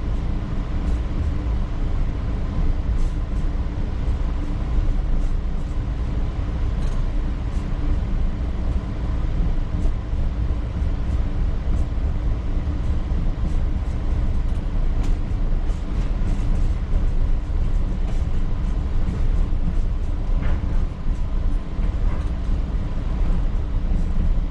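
Electric railcar running along the track, heard from inside the cab: a steady low rumble of wheels and running gear, with scattered light clicks and knocks from the rails.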